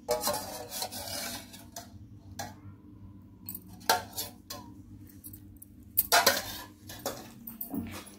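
Wooden pestle pounding and grinding gongura (sorrel leaf) paste in a stone mortar: irregular strokes and scrapes of wood on stone.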